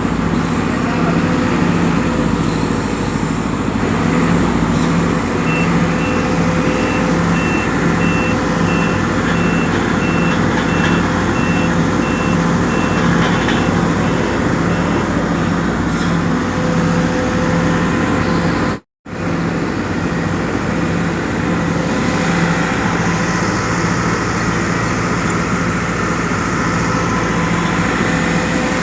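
Sumitomo SH210 excavator's diesel engine running steadily with a pulsing low drone, and a high repeated beeping for about ten seconds in the middle. The sound breaks off completely for a moment about two-thirds of the way through.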